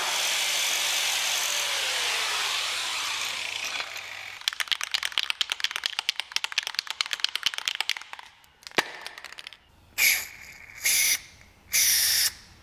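Electric angle grinder running and winding down about four seconds in. Then an aerosol spray can is shaken hard, its mixing ball rattling in quick clicks. Near the end come three short hisses of spray.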